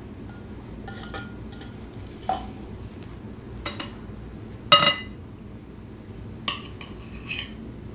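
Metal knife and fork clinking against a plate: about six separate clinks spread out, the loudest a little past halfway ringing briefly.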